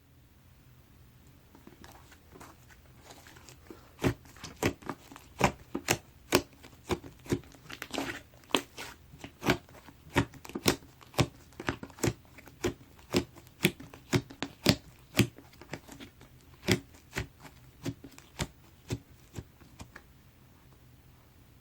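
White 퐁말 slime being pressed and worked by hand, giving a run of sharp popping clicks about one or two a second; they start about four seconds in and stop shortly before the end.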